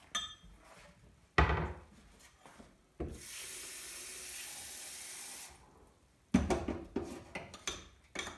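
A thump, then a kitchen tap running for about two and a half seconds into a small glass jug of flour. Then a spoon clicks and clatters against the glass as the flour and water are stirred together.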